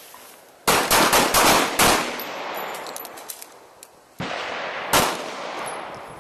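Handgun shots from a line of shooters, each drawing and firing one round on command. A quick, ragged string of several shots starts under a second in, followed by two late single shots at about four and five seconds, each trailing off in echo.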